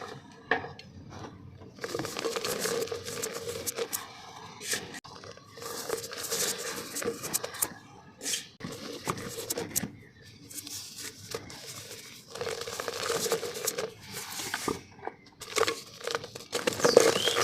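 Dry, dusty black mud being crumbled and crushed by hand in a clay pot: irregular bursts of gritty crunching and crumbling with sharp little cracks, pausing briefly between handfuls, with a louder burst near the end.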